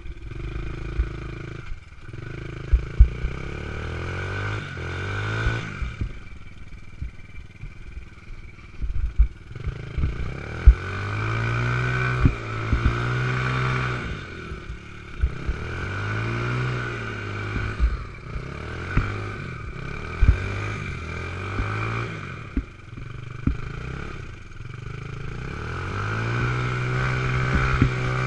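A 90cc youth ATV engine revving up and falling back again and again in surges a few seconds apart, with many sharp knocks and clatters of the quad's body. The quad appears to be hung up against a tree while the rider tries to free it.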